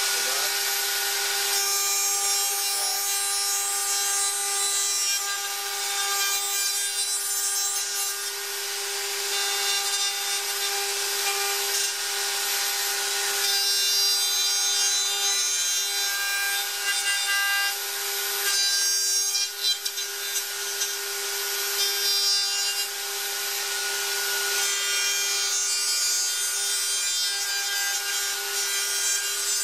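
Plunge router with a straight bit running at a steady speed with a constant whine, cutting into a board through a dovetail-jig template. The hiss of the cut swells and drops in several stretches as the router moves from slot to slot.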